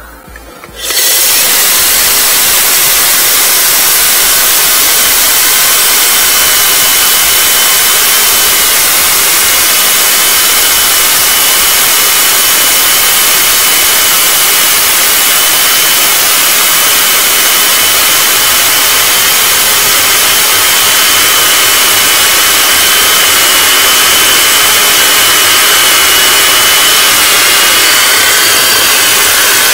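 Electric core drill with a 125 mm core bit boring through a wall, running steadily under load, together with a vacuum cleaner held at the bit to pull away the dust. The loud, steady noise with a high whine starts about a second in.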